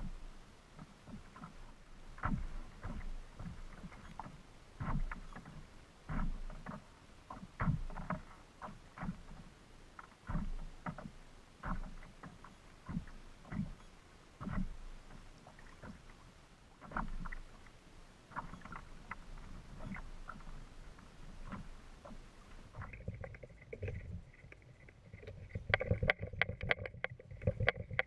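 Choppy waves slapping against the hull of a Hurricane Skimmer 140 plastic fishing kayak, irregular knocks and thuds every half second to a second. Near the end the sound changes to a denser, faster clatter.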